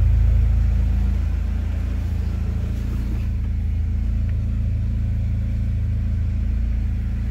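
Fiat Marea 2.0 turbo five-cylinder engine through an almost straight exhaust (original mufflers removed, catalytic converter hollowed out, only one large turbo-style muffler at the tail), not yet fully warm. It eases down over the first second or two from a light blip of the throttle and settles into a steady, low, rumbling idle.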